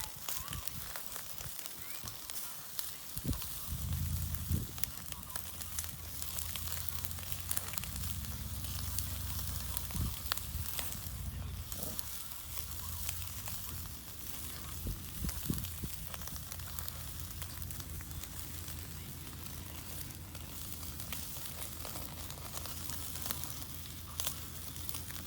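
Wood fire burning in a Snow Peak Takibidai SR fire pit: a steady hiss with scattered crackles and pops.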